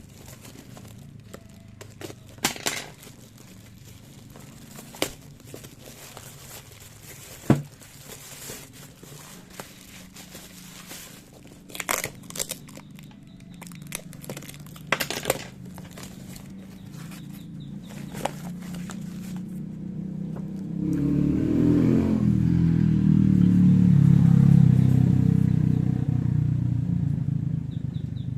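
Electric fan motor with a low steady hum, under scattered clicks and knocks of handling. About 21 seconds in, the motor's hum grows much louder, peaks a few seconds later, then eases off slightly.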